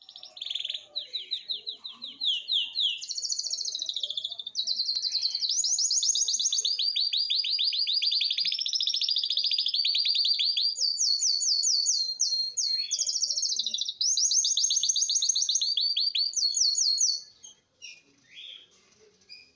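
Eight-month-old cinnamon-mutation red siskin singing a long, unbroken song of rapid trills, switching between higher and lower phrases every second or two: a young bird coming into its full song. It stops about 17 seconds in, and a few faint notes follow.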